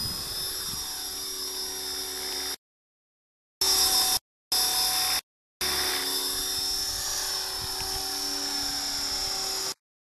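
Electric RC helicopter's motor and rotor running at flight speed, a steady high-pitched whine, as the model lifts off and flies. The sound drops out completely several times for a moment.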